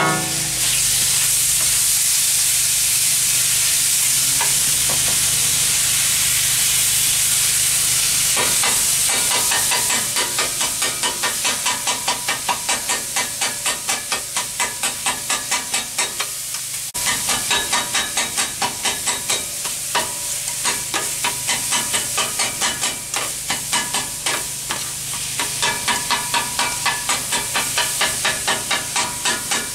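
Chicken sizzling on a flat-top steel griddle. From about a third of the way in, a metal scraper chops it rapidly against the griddle at about three sharp clacks a second, with a short pause after the middle.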